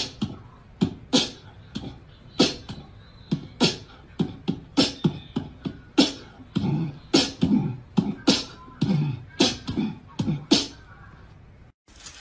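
Rhythmic beatboxing: sharp mouth-made clicks and hissing snares with deeper kick-like thumps, about two to three beats a second. It stops abruptly near the end.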